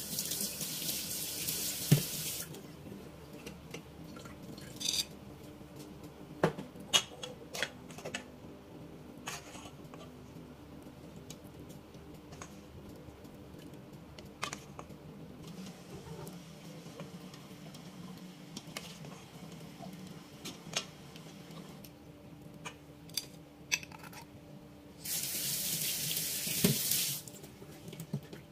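A kitchen tap running into a stainless steel sink, for about two and a half seconds at the start and again for about two seconds near the end. In between it is quieter, with scattered light clicks and knocks of utensils and containers.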